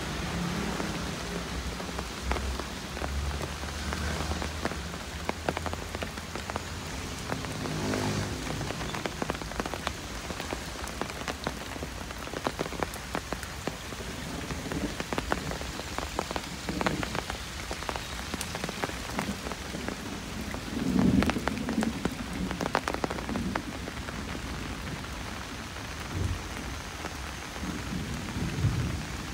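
Light drizzle falling on a wet concrete path and leaves: a steady hiss dotted with individual drops ticking. A low rumble rises a little past two-thirds through, with another near the end.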